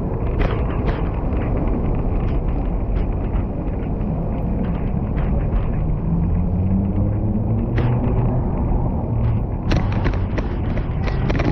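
Cybex Gazelle S stroller rolling over a paved sidewalk: a steady low rumble from the wheels, picked up through the stroller's frame, with scattered clicks and knocks and a cluster of them near the end.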